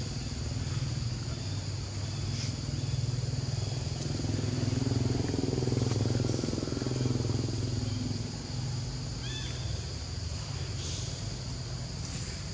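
Steady high-pitched insect drone, with a low rumble that swells and fades in the middle and a few short, faint chirps near the end.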